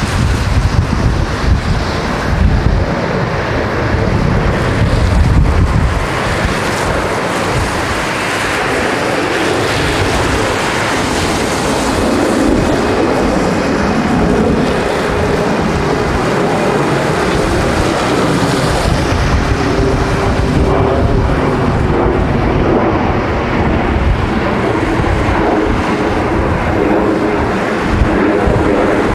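Strong gusty wind buffeting the microphone, heaviest in the first several seconds, over the rumble of twin-engine jet airliners landing in a crosswind. A faint steady engine whine comes through from about twelve seconds in.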